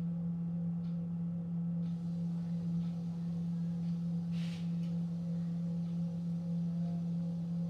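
A steady low hum, unbroken throughout, with a brief faint noise about four and a half seconds in.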